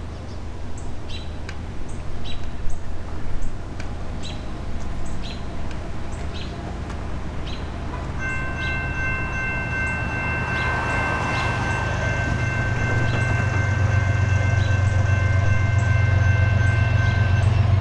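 Approaching GE ES44AH diesel locomotive leading a freight train: its horn sounds one long chord of several tones, held for about nine seconds from about halfway in, while the low engine and rail rumble grows steadily louder as the train nears. Faint high chirps repeat about every half second in the first half.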